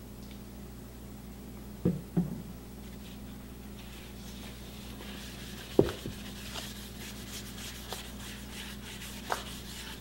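Paper towel rubbing liquid over an end-grain walnut cutting board in a plastic tub, a soft scrubbing from about halfway on, with two dull knocks about two seconds in and a louder knock near six seconds. A low steady hum runs underneath.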